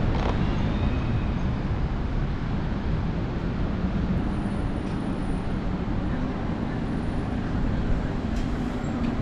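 Street traffic noise: a steady wash of cars and other vehicles driving past on a city street.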